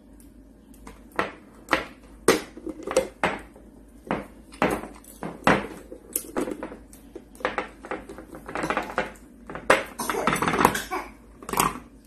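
Glass food container's plastic snap-lock lid being worked open by a parrot's beak: a string of irregular sharp clicks, taps and clatters of plastic latches and of the lid and glass knocking on the counter, coming thicker near the end.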